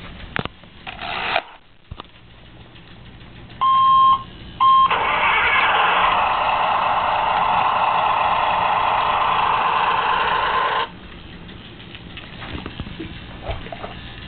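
Electronic sound effects from a battery-powered Hess toy truck, played through its small tinny speaker. Two short beeps come first, then about six seconds of a recorded engine-like rumble that cuts off suddenly.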